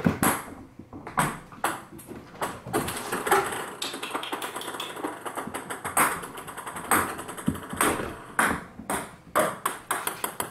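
Ping pong balls bouncing on a hardwood floor: sharp clicks at irregular intervals, with a run of quicker, closer bounces near the end.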